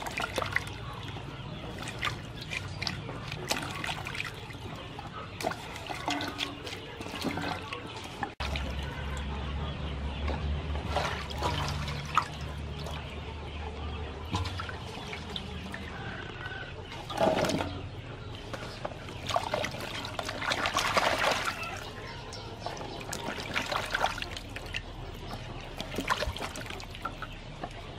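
Hands washing vegetables in a large aluminium basin of water, with irregular splashing and sloshing as they are rubbed and swirled.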